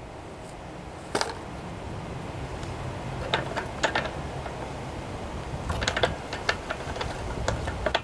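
Scattered light clicks and taps, more of them in the second half, as a plastic inline fuel filter and rubber fuel line are handled and fitted against the engine.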